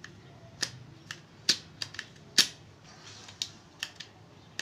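A freshly resealed CO2 airgun being cocked and fired: a string of about ten sharp metallic clicks and pops, the loudest about halfway through. The shots are crisp.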